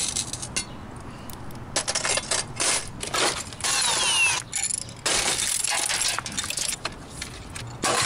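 Cordless drill backing screws out of a flatscreen TV's aluminium back panel, running in spells, with one falling whine as it winds down a little before halfway. Many sharp metallic clinks and knocks of loose parts come in between.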